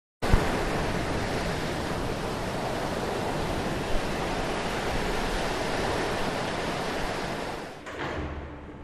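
Ocean surf: a steady rush of waves that starts abruptly about a quarter second in and falls away near the end.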